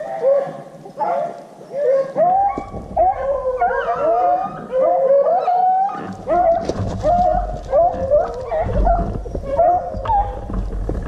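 A pack of beagles baying while running a rabbit: a rapid, unbroken string of short rising howls, several a second and overlapping, the cry of hounds on a rabbit's track.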